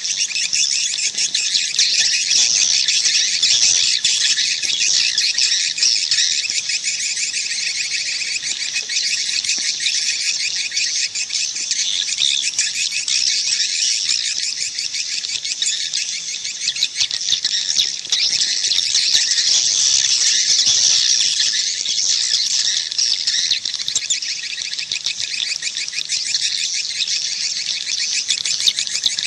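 Swiftlet call track: a dense, continuous twittering of many swiftlets, rapid high chirps overlapping without pause. It is the kind of call sound played from a swiftlet house to lure the birds in to roost and nest.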